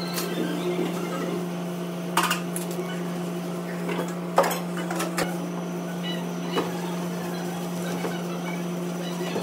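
Kitchen background: a steady low hum with scattered sharp clinks and knocks of dishes and utensils, the clearest about two seconds and four and a half seconds in.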